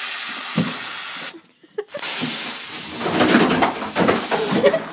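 A steady hissing noise that runs for about a second and a half, stops briefly, then comes back for about three more seconds before fading out.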